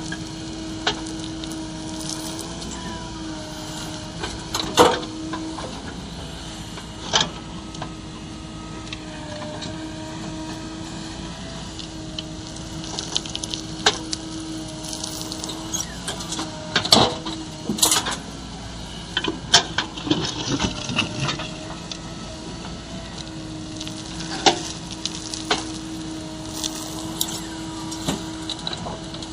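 JCB 3DX backhoe loader at work: a steady engine hum with a held tone, broken by scattered sharp knocks and clatter, busiest about two-thirds of the way through.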